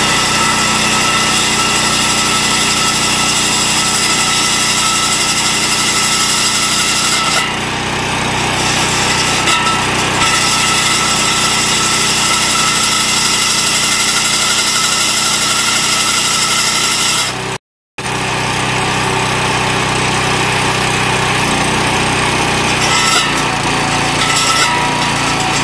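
Hydraulic handheld core drill running, its core bit cutting into a concrete pipe, over the steady drone of a small engine driving the hydraulic power pack. The noise is continuous and even, broken only by a split-second dropout about two-thirds of the way through.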